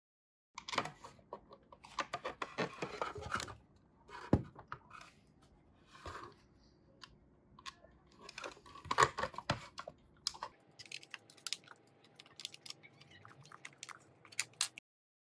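Small hard parts being handled and worked by hand: irregular clicks, taps and short scraping or rustling sounds. A faint steady hum joins about ten seconds in.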